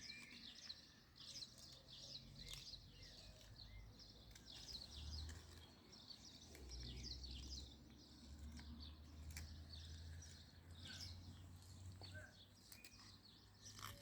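Faint chirping of small birds: many quick, high, down-slurred notes overlapping throughout, over a low steady hum.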